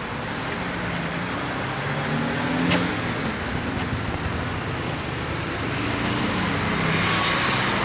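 Street traffic passing close by: car and motorcycle engines and tyre noise, growing slightly louder and hissier toward the end. A single short click about three seconds in.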